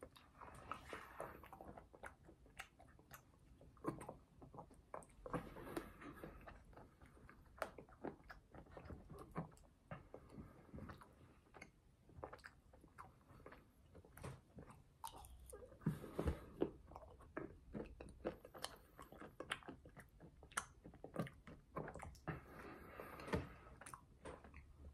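Close-miked chewing and mouth sounds of someone eating an M&M's McFlurry by the spoonful: wet chewing with crunching of the candy pieces, mixed with small clicks of the plastic spoon in the paper cup. The sounds come in busier spells with short lulls between them.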